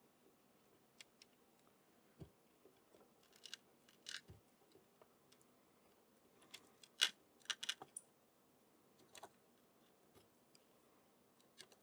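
A knife blade prying and scraping at a stuck piece of an old wooden sash window: scattered short scrapes and clicks, the loudest a little after halfway through.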